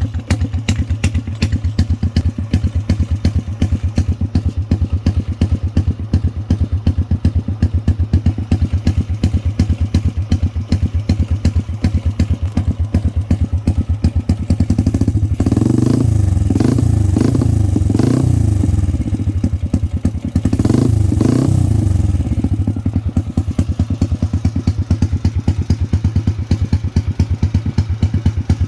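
Motorcycle engine idling through an aftermarket exhaust canister, with evenly spaced exhaust pulses. It is revved twice past the middle, the first rev held for a few seconds and the second shorter, each rising and dropping back to idle.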